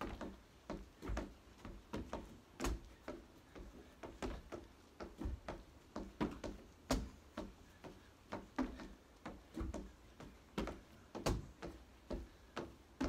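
Feet landing on a wooden deck during exercise: light thuds about twice a second from pretend jump-rope hops, with a heavier thud roughly every four seconds from burpee jumps.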